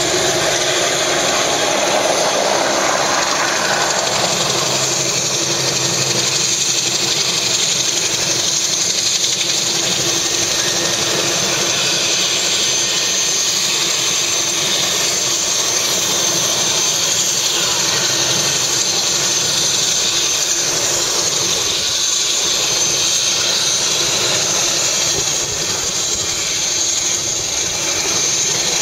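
Helicopter turbine engine and rotor running steadily, a loud rushing hiss with a whine. It is stronger in the first few seconds while a helicopter flies close by.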